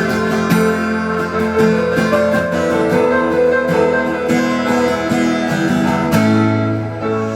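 Acoustic guitar playing an instrumental passage of strummed and picked chords; about six seconds in it settles into a sustained low chord.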